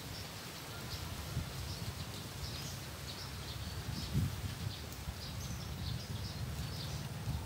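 Birds chirping in short, irregular high notes, over a steady low rumble.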